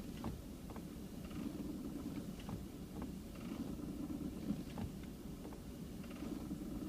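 Clutch pedal of a 2014 Jeep Wrangler being worked repeatedly, giving a recurring low creaking noise with faint clicks about once a second over a steady low background. The noise persists even though the clutch system has just been replaced.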